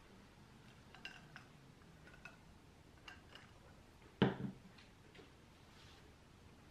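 Ice cubes clinking lightly against a drinking glass, a few faint ringing ticks, then a single soft knock about four seconds in as the glass is handled on a wooden coaster.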